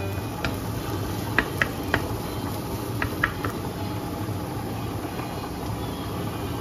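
Mushrooms sizzling in a nonstick frying pan. In the first half a wooden spoon knocks against the pan several times as they are stirred.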